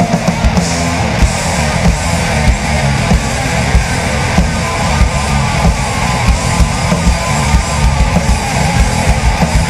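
Instrumental rock passage with electric guitar and a drum kit keeping a steady beat, without singing.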